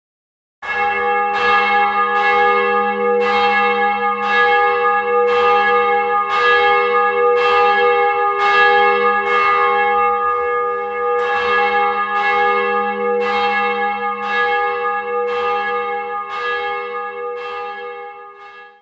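Bell sound effect: a bell struck again and again at an even pace, about one and a half strokes a second, each stroke ringing on into the next. The ringing fades away near the end.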